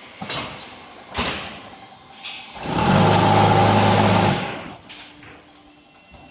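Concrete block-making machine cycling: a few clanks as the tamper head and mould move, then about a second and a half of loud, steady humming rattle from the vibrators compacting the concrete in the mould, which dies away a little after four seconds in.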